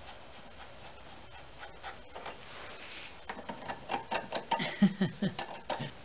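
Ratchet wrench with a 15 mm deep-well socket clicking quickly as a loose engine mount bolt is backed out. The clicks are sparse at first and become rapid and louder about halfway through.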